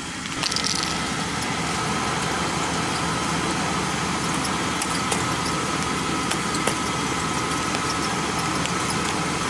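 Truck engine idling steadily, with a few sharp ticks scattered through it.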